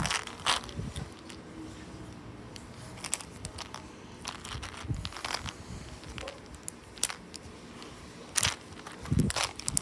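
Plastic Skittles candy packet crinkling and crackling in irregular sharp snaps as it is handled and pulled open; it is hard to open.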